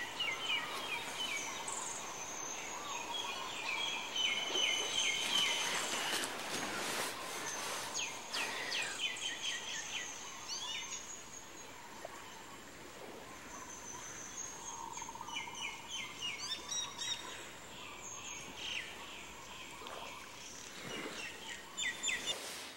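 Several small birds chirping and calling in quick repeated phrases, over a faint steady background hiss.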